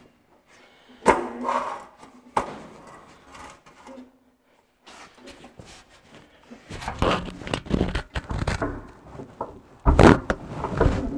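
Microphone rubbing and handling noise mixed with metal clunks: two sharp knocks early, then several seconds of heavy rubbing, scraping and thuds, loudest near the end, as the tractor's halves are shunted and the PTO shaft is turned to engage the clutch splines.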